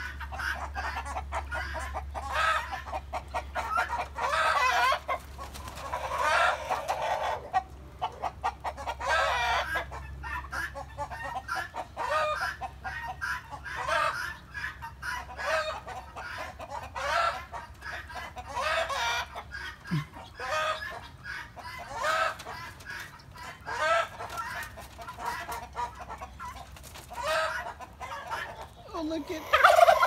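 A mixed flock of chickens and turkeys clucking and calling almost without pause, many short overlapping calls. The birds are stirred up by a hawk close by.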